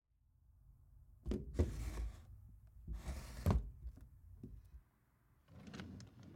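A few knocks and thuds over a low rumble, with two short rushes of noise, the second ending in a heavy thud about three and a half seconds in.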